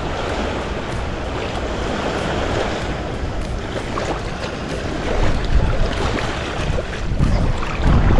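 Shallow surf washing over sand around the feet, with wind buffeting the microphone in gusts that grow stronger about five seconds in and again near the end.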